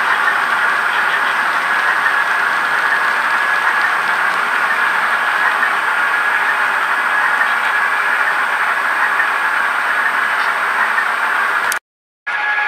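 Steady running sound of model trains on a layout: a diesel-engine hum mixed with wheel noise on the track. It cuts out abruptly near the end.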